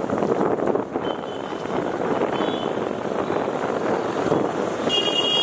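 Steady road and traffic noise from a vehicle riding through a busy street, with wind on the microphone. A vehicle horn starts sounding near the end.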